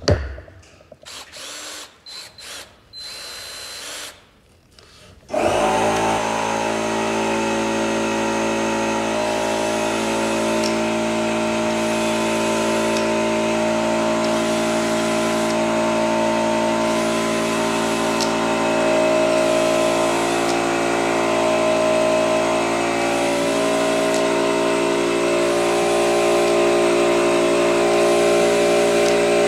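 Power drill pre-drilling screw holes in the wooden boards of a Langstroth hive box. After a few seconds of knocks and handling, the drill starts about five seconds in and runs steadily from then on.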